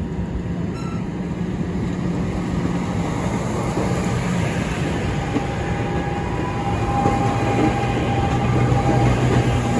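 NJ Transit Arrow III electric multiple-unit train rolling slowly past along the platform: wheels rumbling on the rails, growing louder as the cars pass, over a low hum that drops in pitch about halfway through. A thin, high squeal starts about six seconds in and holds to the end.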